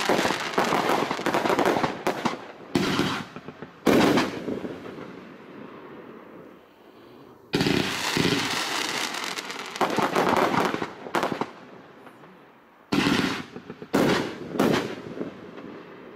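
500-gram consumer fan cake firing its shots in rapid volleys of sharp pops, a few seconds apart, with quieter gaps as each volley dies away.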